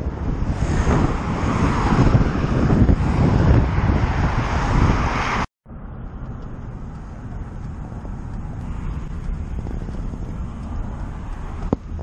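Wind buffeting the microphone over highway traffic noise at the roadside. After a sudden cut about five and a half seconds in, a steadier, quieter hum of road and engine noise inside a moving truck's cab.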